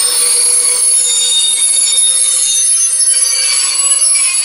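Freight train's container wagons rolling past with a loud, steady high-pitched squeal from the wheels, several shrill tones held together over the rolling noise.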